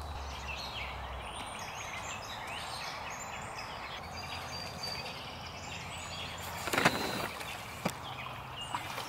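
Several songbirds chirping and singing in quick, repeated phrases, over a steady outdoor background. About seven seconds in comes a brief, louder rush of noise.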